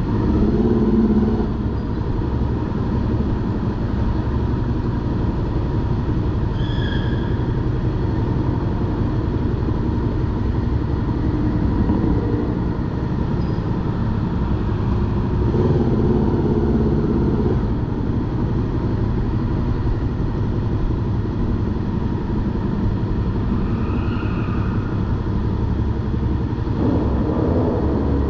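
Honda VFR800Fi's V4 engine running at low speed under the rider, a steady low rumble that swells a little a few times as the throttle is opened.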